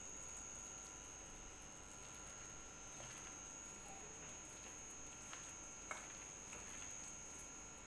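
Hands squishing sliced potato through a thick gram-flour and egg batter in a bowl, faint and soft, with a few light clicks against the bowl about three, five and six seconds in. A steady high-pitched electrical whine runs underneath.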